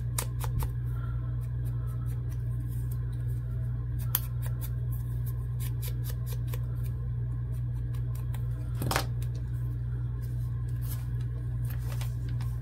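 A mini ink blending tool dabbed and rubbed against the edge of a small piece of paper: an irregular run of soft taps and scuffs, with a steady low hum underneath.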